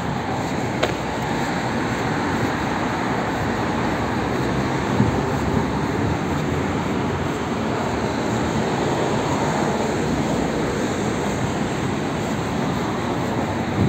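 Steady outdoor street noise: a constant even roar like city traffic.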